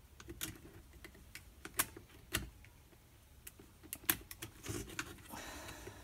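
Irregular sharp clicks and taps of hard plastic as a Flow Hive Flow Frame is handled and its tensioning wire worked into place, with a brief scraping rustle about five seconds in.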